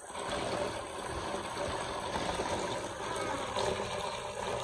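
Water running and splashing during washing: a steady rush that starts abruptly and drops off near the end.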